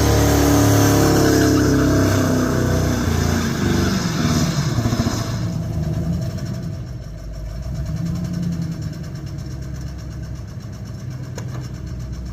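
Vehicle engine revved high, the revs falling over the first few seconds, then dropping back to a lower, steady rhythmic idle about halfway through. The uploader wonders whether its sound is rod knock.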